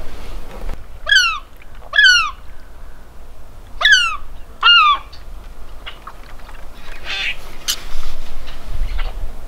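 Gulls calling: four sharp cries in two pairs, each one falling in pitch.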